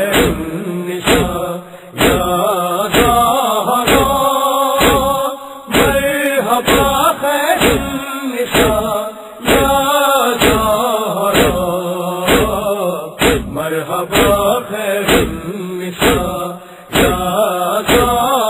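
Noha, a Shia lamentation chant, with voices chanting over a steady beat of about two strokes a second.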